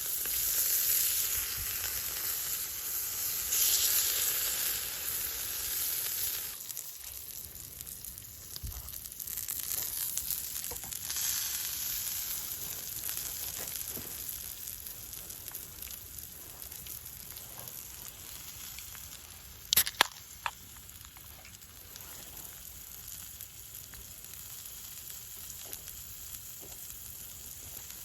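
Food sizzling as it fries over a campfire, loudest for the first several seconds and then settling to a quieter sizzle. Scattered small pops and two sharp clicks come about two-thirds of the way through.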